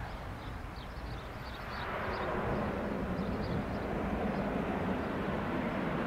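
Twin PT6A turboprop engines of a Beechcraft C90A King Air rolling out after landing on a wet runway. The engine and propeller noise swells about two seconds in, then holds steady.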